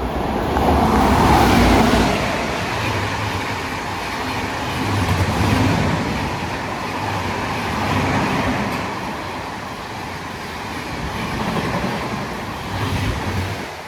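A train running past close by: a loud rumble of wheels and coaches that swells and eases about every three seconds, then cuts off suddenly at the end.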